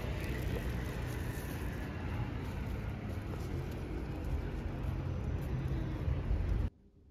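Road traffic on a busy street: a steady rumble of passing vehicles. It cuts off suddenly near the end, leaving near silence.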